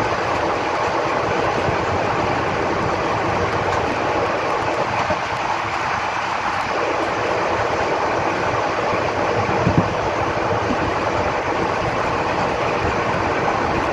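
Indian Railways express passenger coach running at speed on the track: a steady rush of wheel-and-rail running noise, with a couple of short, louder knocks about ten seconds in.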